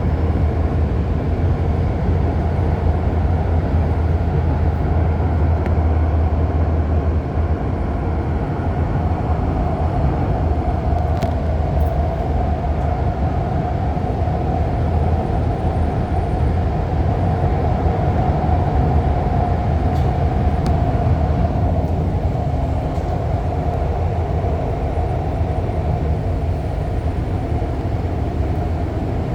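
REM automated light-metro train running along the line, heard from inside the passenger car: a steady running rumble with a wavering mid-pitched hum. The low rumble is heavier for the first several seconds, then eases.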